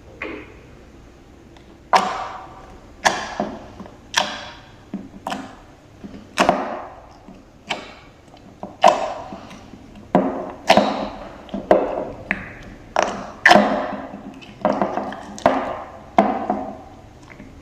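Slime being pressed and worked by hand, giving a string of short, sharp squelching pops, each fading quickly, about one or two a second from about two seconds in.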